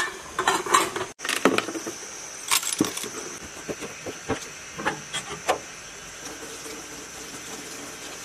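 Workshop handling noises: a quick run of knocks and light metallic clatter, then a few single knocks as parts and a plastic crate are set down, settling into a faint steady hiss.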